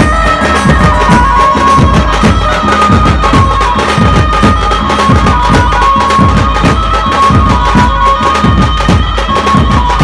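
Dhumal band music: large barrel drums beaten with sticks in a fast, steady beat, with a reedy held melody line over them.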